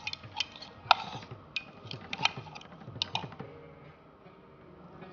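A metal spoon clicking against a small stainless steel pot while stirring a thick spice paste, in quick, irregular clinks. The clinks die down after about three and a half seconds.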